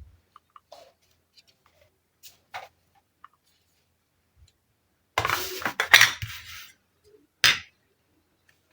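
Miniature toy kitchen and tea-set pieces clicking and clinking as they are handled. A few light taps come in the first three seconds, a dense clatter about five to seven seconds in, and one sharp click near the end.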